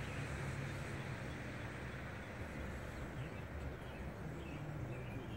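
A vehicle engine hums low and steady, with a broader rush of vehicle noise fading away over the first couple of seconds. Small birds chirp from a little past halfway.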